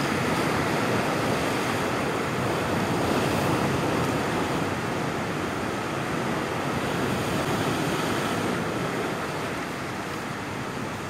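Sea surf breaking and washing over a rocky shore: a steady rushing of waves that eases a little toward the end.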